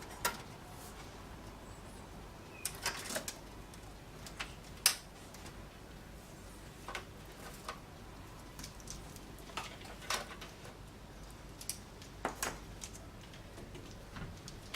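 Irregular clicks, taps and light knocks of hands working inside a PC case, pulling power-supply cables and plastic connectors loose. Small groups of clicks come about three seconds in and near twelve seconds, and the sharpest knock comes about five seconds in.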